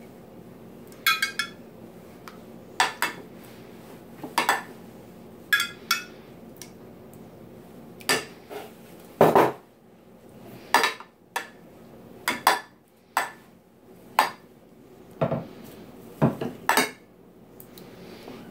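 Metal spoon clinking and scraping against glass baking dishes as sauce is spread, in about twenty irregular taps and scrapes, some ringing briefly.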